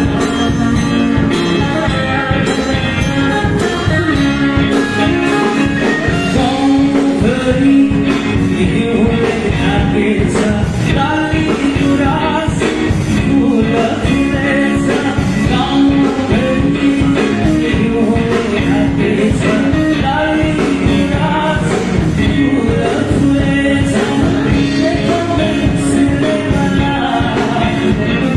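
A live rock band playing through the venue's PA: a singing voice over electric guitars and a drum kit, loud and continuous.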